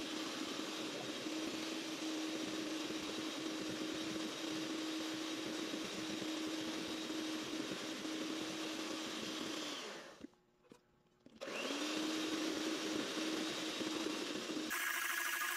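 Electric hand mixer running steadily, its beaters whipping a gelatin and allulose marshmallow mixture toward stiff peaks in a stainless steel bowl. The motor drops out for about a second two-thirds of the way through, then resumes, and shifts to a higher whine near the end.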